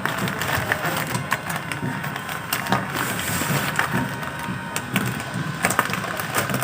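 Packaging being handled and opened: irregular crackling, crinkling and scraping, with many small clicks.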